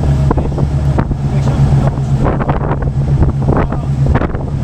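Boat engine droning steadily under wind buffeting the microphone, with a burst of rougher wind and water noise in the second half.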